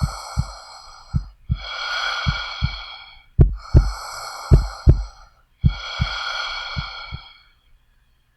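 A person breathing in and out, each breath lasting under two seconds, over a heartbeat of paired low thumps (lub-dub) about once a second. Both stop shortly before the end.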